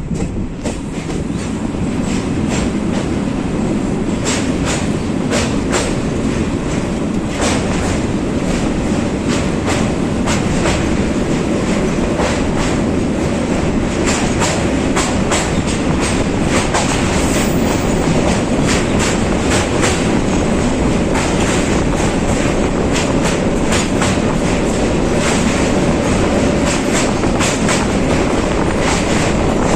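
Train running on the rails: a steady rumble with the wheels clicking irregularly over the rail joints, growing slightly louder in the first couple of seconds.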